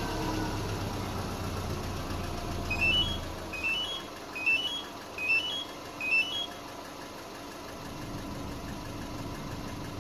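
Subaru Forester's flat-four engine idling just after a remote start, heavier at first and then settling lower. About three seconds in come five short electronic beeps, each a quick rising three-note chirp, about 0.8 s apart.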